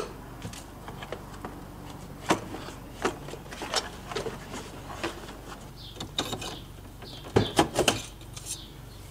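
Scattered clicks and knocks of plastic interior trim as a Mazda Miata's center console is unscrewed and lifted out, with a louder cluster of knocks about seven and a half seconds in.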